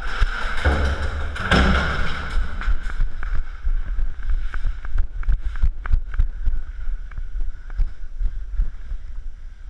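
Movement noise on a body-worn action camera: rumbling wind and rubbing on the microphone with a flurry of knocks and clatter for the first few seconds, then scattered sharp knocks.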